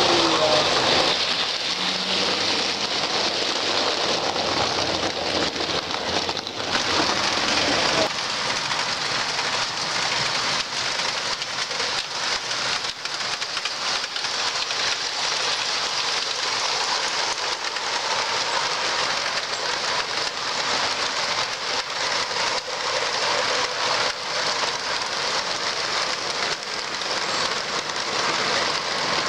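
O scale two-rail model train running on the layout's track: a steady rushing hiss of wheels on rail, dotted with many small clicks. The sound gets lighter about eight seconds in.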